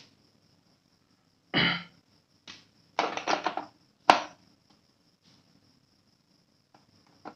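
Handling noise as multimeter test probes are pushed into a power strip's socket: a few scrapes and knocks, then one sharp click about four seconds in as a probe tip goes home.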